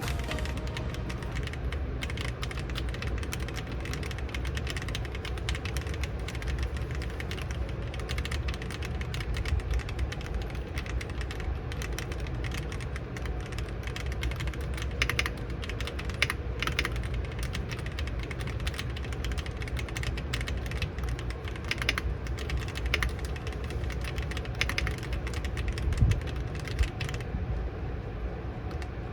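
Typing on an MW65 gasket-mount keyboard with stock linear red switches, an acrylic plate, foam mods and ABS keycaps: a continuous, even stream of keystrokes with a few louder strokes, one distinctly louder knock near the end.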